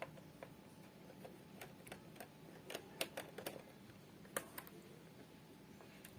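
Faint, scattered clicks and light taps of plastic and small parts being handled as a laptop's drive-bay cover is opened.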